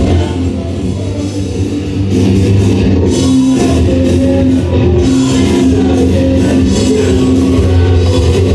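Rock music with guitar and drums playing loud through a first-generation Audiomobile AR-3 car-audio amplifier rack and its speakers during a test of the freshly wired rack.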